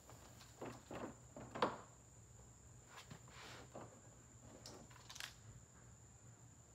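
Plastic front bumper cover of a 2017 Chevrolet Camaro SS being pulled loose by hand, giving a few scattered creaks and clicks from the plastic and its retaining clips, the loudest about a second and a half in.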